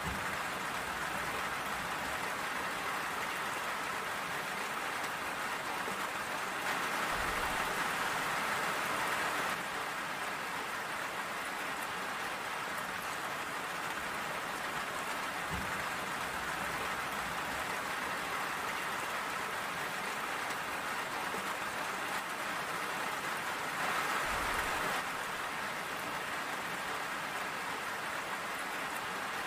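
Steady rain falling, a dense even hiss, briefly growing a little louder twice.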